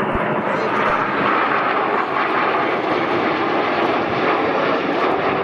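Several BAE Hawk T1 jets flying in formation, their Adour turbofan engines making a steady, loud jet noise.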